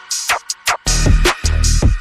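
Electronic background music with a drum-machine beat: kick drums, falling bass sweeps and hi-hats.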